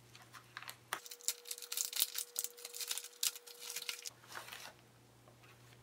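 Black plastic bubble mailer crinkling and crackling as it is handled and pulled open, a dense run of sharp crackles for about three seconds, then a shorter rustle.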